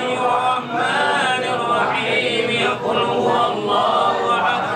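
A group of men chanting a tahlil dhikr recitation together, the voices running continuously in a rising and falling melodic line.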